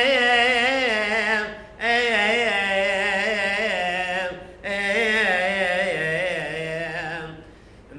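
A priest's solo male voice chanting a liturgical hymn unaccompanied, in long ornamented phrases that waver up and down in pitch. The chant breaks briefly for breath about two seconds and four and a half seconds in, and falls away near the end.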